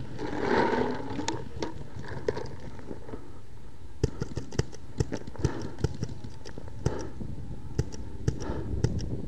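Paintballs rattling out of a pod into a paintball marker's hopper during the first second, then scattered faint pops of paintball markers firing further off, coming singly and in pairs.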